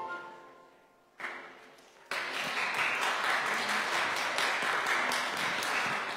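A last chord of keyboard music fading out, then a congregation applauding for about four seconds, starting about two seconds in, in thanks for the prelude.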